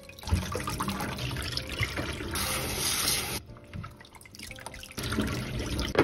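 Water splashing and running: a kitchen tap pours into a plastic bowl while hands swish and rub basil leaves in the water. The splashing is loudest for about a second in the middle, then eases and picks up again near the end.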